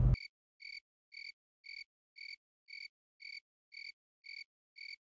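About ten short, high, evenly spaced chirps, roughly two a second, over otherwise dead silence. It is an inserted sound effect, not the sound of the cab.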